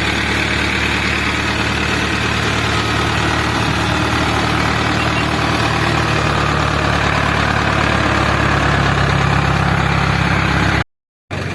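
Heavy diesel engine running steadily, its note rising slightly about nine seconds in. The sound drops out completely for a moment near the end.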